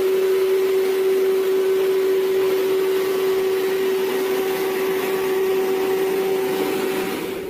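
Steady whirring machine noise with one constant hum, like a small motor running at an even speed, cutting off at the end.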